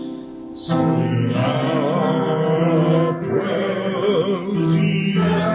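Worship music: a singer holding long, wavering notes over sustained keyboard chords.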